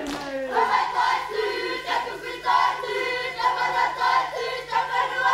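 Kapa haka group of Māori performers singing and chanting in unison: many voices holding notes in short phrases, opening with a falling vocal glide.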